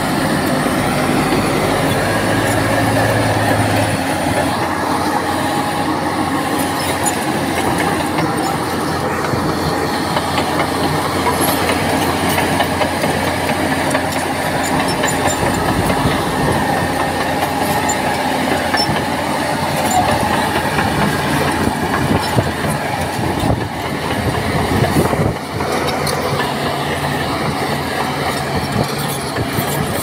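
Crawler bulldozer working: a steady diesel engine under load, with its steel tracks clanking and squealing and a few harder knocks a little past the middle.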